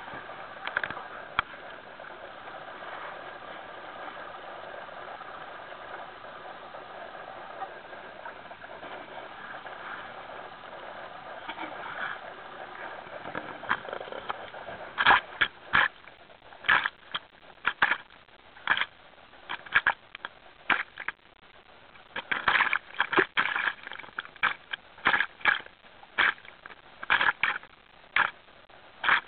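Water rushing past a human-powered pedal boat under way, at first a steady rush, then from about 15 s in, irregular loud splashes and slaps of spray hitting a microphone held at the waterline beside the hull.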